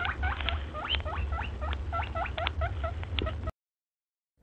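Rabbit squeaking: a fast series of short high squeaks, about four or five a second, over a low rumble. It cuts off suddenly about three and a half seconds in.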